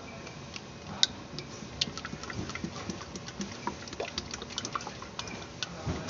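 Engine oil glugging out of a one-litre plastic bottle into a plastic funnel in the engine's oil filler, with many small irregular clicks and gurgles as air bubbles back into the bottle. A sharper click comes about a second in.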